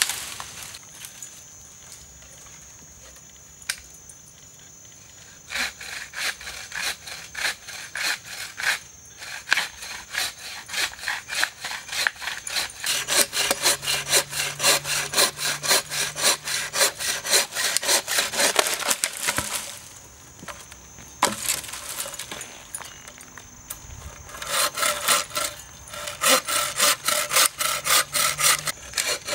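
Hand saw cutting wood with quick back-and-forth strokes, about three a second. It starts about five seconds in, stops for a few seconds about two-thirds of the way through, then carries on.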